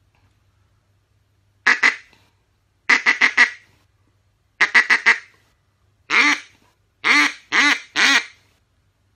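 Duck Commander Inferno, a soft-plastic double-reed duck call, blown in raspy hen-mallard quacks. A single quack, then two quick strings of four, another single, and three longer quacks near the end.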